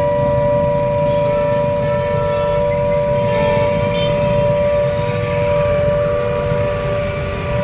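Civil defence siren sounding a steady, unwavering tone, the signal of a blackout mock drill, over low street noise.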